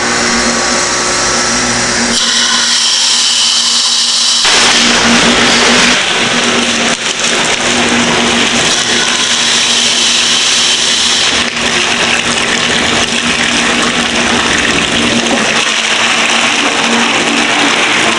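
Water running hard from a hose into a plastic calf bucket, over a steady machine hum from the milk-house equipment. The sound changes in character a few seconds in, then stays steady.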